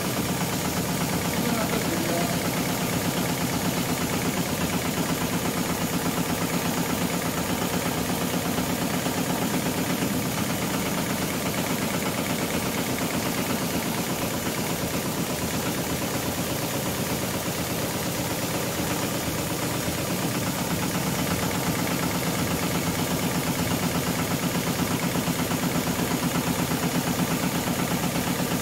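HighTex GLK700-5030 heavy-duty programmable pattern sewing machine stitching wide webbing sling with thick thread. Its needle runs at a fast, even rhythm over a steady machine hum that holds the same level throughout.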